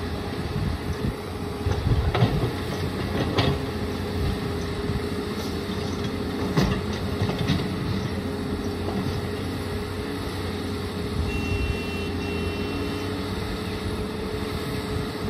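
Cat 320C hydraulic excavator's diesel engine running steadily under load as it works, with several sharp thuds and clunks as bucket loads of soil drop into a steel dump-truck bed. Two short high beeps sound about eleven seconds in.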